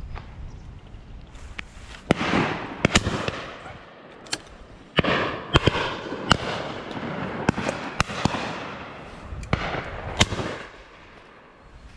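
Shotguns firing at driven pheasants: many shots spaced irregularly, some close and loud, others farther down the line, each followed by a rolling echo.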